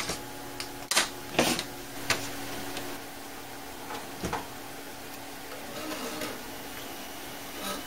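Hands working at the back of an open desktop computer case: a few sharp clicks and knocks in the first couple of seconds and one more about four seconds in, over a steady faint hum.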